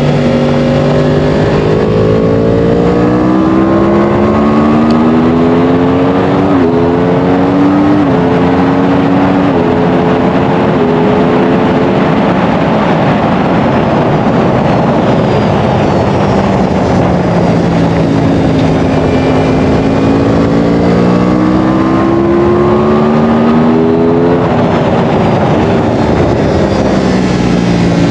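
Track motorcycle's engine at racing speed, heard onboard: revs climb through several quick upshifts, drop away under deceleration around the middle, climb again with another upshift, and fall once more near the end. Steady wind rush runs underneath.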